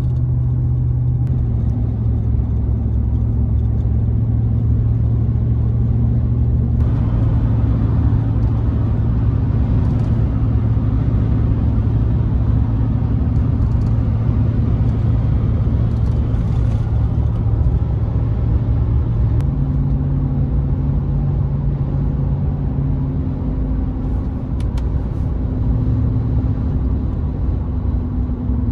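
Steady car cabin noise while driving on an open highway: a low engine drone with tyre rumble, plus a road or wind hiss that gets louder about seven seconds in.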